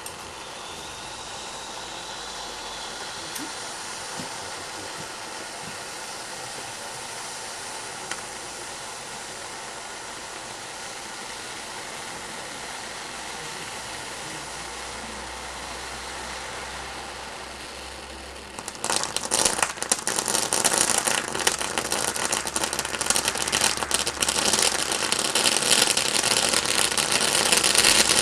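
Diamond Tropical Fire firework fountain burning: a steady hiss of spraying sparks, then about two-thirds of the way through it switches suddenly to a dense, louder crackling that keeps building.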